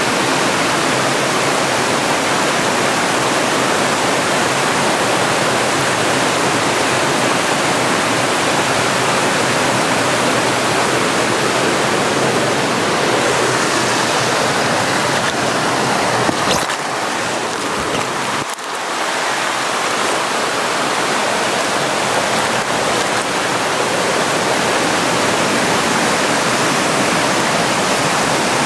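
Forest stream rushing over rock ledges and small cascades, a steady full rush of water. A short bump breaks it briefly a little past halfway.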